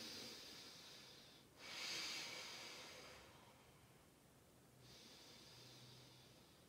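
A woman's slow, audible breathing, three airy breaths with the second the loudest, as she holds a lying hamstring stretch.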